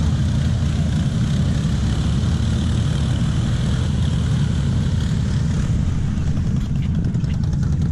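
Off-road vehicle engine running loud, a steady low rumble, with a rapid run of faint ticks near the end.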